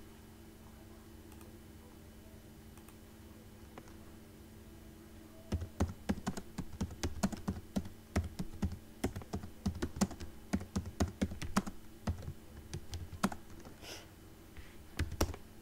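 Typing on a computer keyboard: a quick run of key clicks that begins about five seconds in and lasts about eight seconds, then a few last keystrokes near the end. A steady low hum runs underneath.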